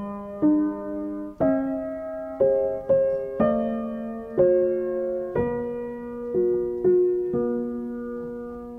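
Slow, gentle piano music: notes and chords struck about once a second, the last one left to ring and fade near the end.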